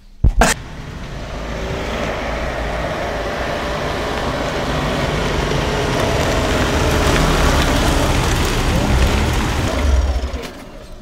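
Two sharp knocks at the start, then a Volkswagen Transporter T6.1 van approaching, its engine and tyre noise growing steadily louder as it draws up close, then dropping away about ten seconds in as it stops.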